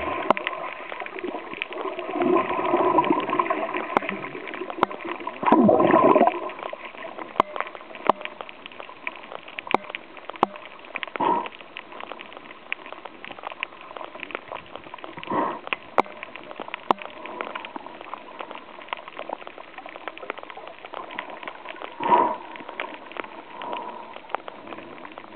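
Underwater sound at a coral reef: a steady crackle of short clicks, broken by several gurgling bursts of bubbles and churned water, the loudest about six seconds in.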